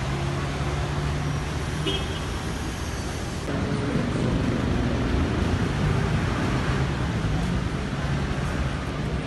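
City street traffic: vehicle engines running with a steady drone of road noise. The sound shifts and gets a little louder about three and a half seconds in.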